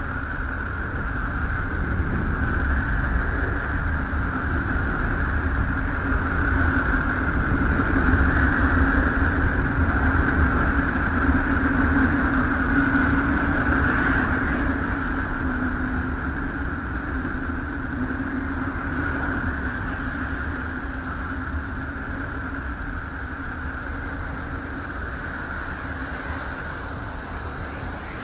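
Voyager 2's recording of Uranus's electromagnetic emissions, from the solar wind meeting the planet's magnetosphere, converted into audible sound. It is a steady rushing rumble with a higher hissing band and a lower droning band, swelling to its loudest midway and then slowly easing off.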